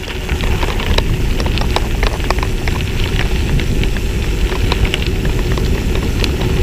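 Riding a trekking bike along a path: a steady rumble of wind on the microphone and tyre noise, with many small sharp clicks and rattles scattered throughout.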